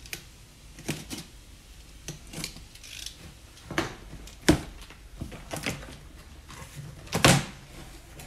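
Utility box cutter slitting packing tape on a cardboard box, then the cardboard flaps being pulled open and folded down: a string of scrapes and sharp knocks, the loudest about four and a half seconds in and again about seven seconds in.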